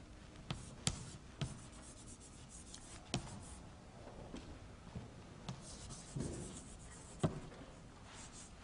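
Chalk writing on a chalkboard: faint scratching strokes broken by several sharp taps of the chalk on the board.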